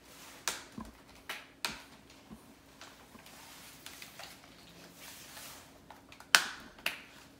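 Plastic RC car chassis parts being handled and worked on: scattered clicks and knocks, the loudest about six seconds in.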